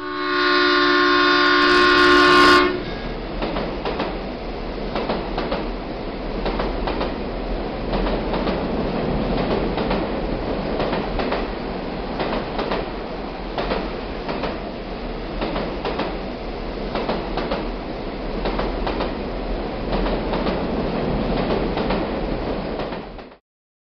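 A train horn blows for about two and a half seconds as the train appears. Then the train runs past with a steady rolling rumble and repeated wheel clacks over the rail joints, and the sound cuts off abruptly shortly before the end.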